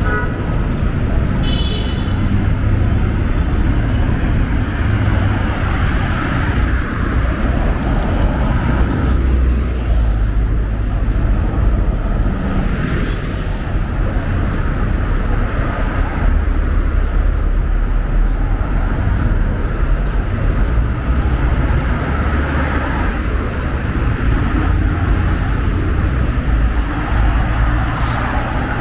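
Steady road traffic on a busy multi-lane street: cars and buses driving past in a continuous low rumble.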